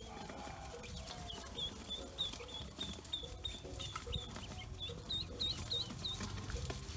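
A brood of newly hatched Pekin and black ducklings peeping: a steady run of short, high peeps, about three a second, with a quick string of scooped peeps about five seconds in.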